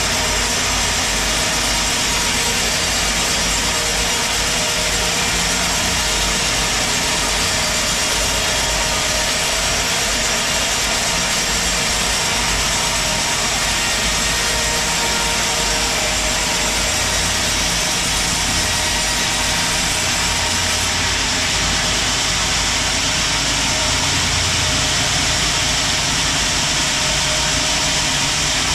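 Log sawmill running steadily, loud and unbroken, while sawing a large teak log into thick planks.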